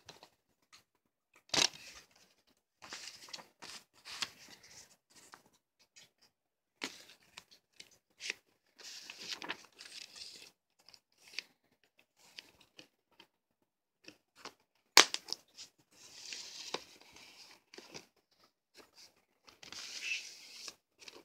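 A plastic Blu-ray case, its discs and paper inserts being handled: bursts of paper rustling and plastic rattling, broken by sharp plastic clicks. The loudest click comes about two-thirds of the way through.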